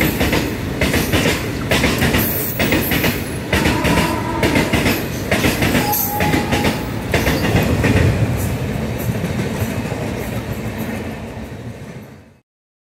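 Freight train of covered goods wagons rolling past at speed, wheels clattering steadily over the rail joints, with a couple of brief wheel squeals. The sound fades and then cuts off abruptly near the end.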